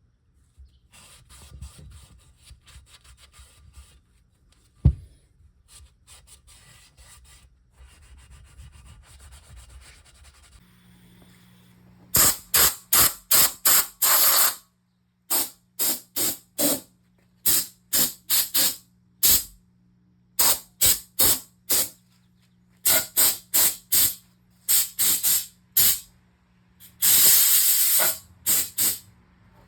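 Paint spraying in short hissing bursts, several a second in quick runs, with one longer burst near the end, over a steady low hum. Before that, faint handling noises and a single sharp knock.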